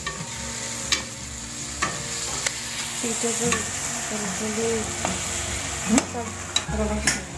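Chopped onion and tomato frying and sizzling in oil in a non-stick kadhai while a spatula stirs them, knocking against the pan about once a second, with louder knocks near the end.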